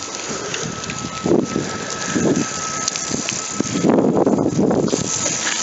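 Wind buffeting the microphone, with irregular rustling and crunching swells, the loudest about four seconds in.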